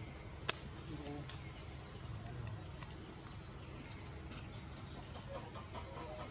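A steady, high-pitched insect chorus that holds as two unbroken buzzing tones, with a single sharp click about half a second in.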